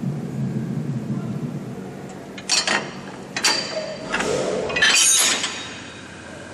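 Automatic knuckle coupler of an EF62 electric locomotive being released by hand. A low rumble plays in the first two seconds. Sharp metallic clicks come about two and a half and three and a half seconds in as the lock is lifted, then a louder clanking rattle about five seconds in as the heavy steel knuckle swings open.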